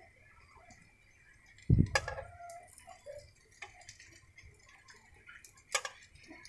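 Egg-dipped bread rounds frying faintly in oil in a non-stick pan, with metal tongs knocking and clicking against the pan as the slices are turned. A loud thump comes about two seconds in and a sharp click near the end.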